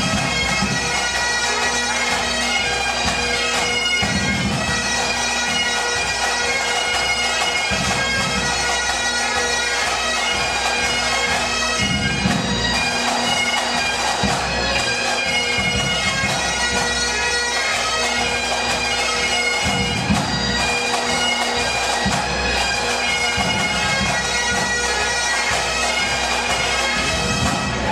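Pipe band playing: Great Highland bagpipes with a steady drone under the chanter melody, backed by the band's drums with a regular low bass-drum beat.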